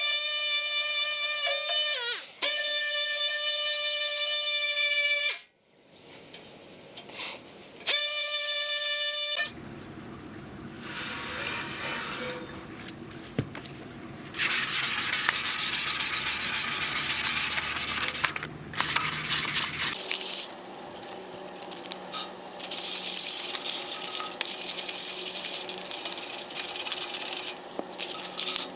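Music with held notes for about the first nine seconds, then sanding or rubbing on the metal jerry can in stop-start stretches of a few seconds each, loudest in the middle and near the end.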